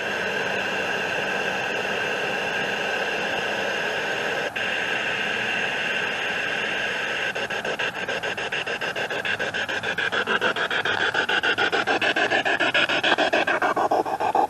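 SB7 spirit box radio putting out hissing static. About halfway through the static starts to chop rapidly and evenly, growing louder toward the end, as the box sweeps through radio stations.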